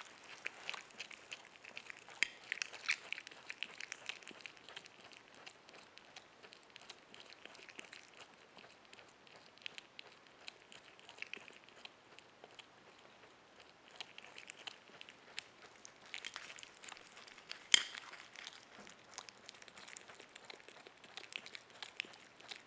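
Capybara chewing soft cooked yam: a steady run of small wet clicks and smacks from its mouth and teeth, busier at times, with one sharper click about eighteen seconds in.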